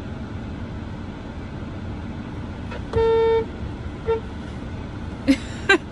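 Car horn sounding one short single-pitch honk, then a quick second tap about a second later, over a steady cabin hum. The honk signals to a friend in the parking lot who is looking for the parked car.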